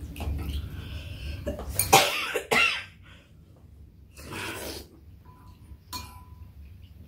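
A person coughs twice about two seconds in, with quieter eating sounds after. Near the end a metal spoon clinks against a bowl and rings briefly.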